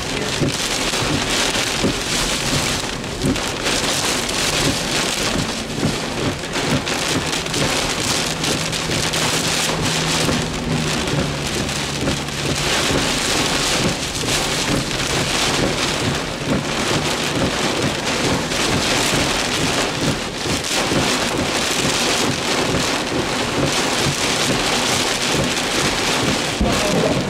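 Heavy thunderstorm rain and wind-driven water beating on a vehicle, heard from inside the cabin during damaging straight-line winds: a loud, dense, steady hiss that swells and eases with the gusts.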